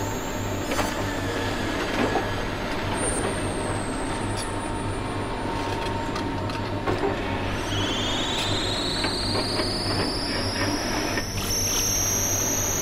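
Diesel engine of a Case demolition excavator running steadily, with scattered knocks and clanks of rubble and metal. From about eight seconds in, a high metallic squeal rises in pitch and then holds.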